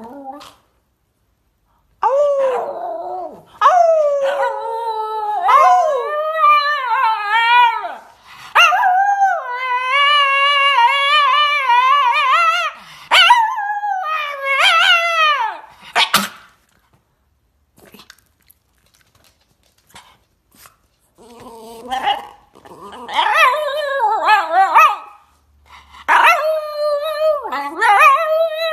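Long, drawn-out animal cries that waver up and down in pitch, several in a row, with a few quieter seconds about midway.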